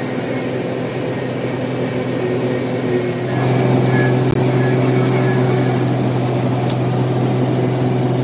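Metal lathe running with a steady low hum and a few steady whining overtones, growing louder about three seconds in.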